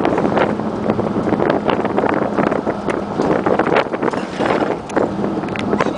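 Wind buffeting the microphone in the open bed of a moving pickup truck, over the truck's running and road noise.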